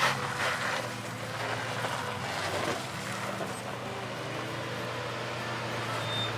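Land Rover Defender 130 engine running steadily at low revs as the truck crawls down a rocky track. A few rough crunching sounds of tyres on rock and gravel come in the first second.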